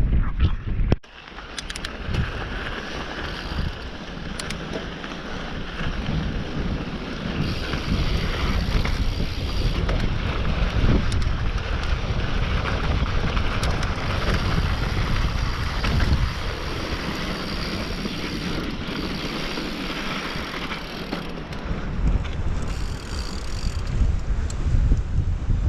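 Mountain bike rolling down a dirt trail: steady wind buffeting the microphone and tyres rumbling over the ground, with scattered sharp clicks and rattles from the bike. The noise starts about a second in.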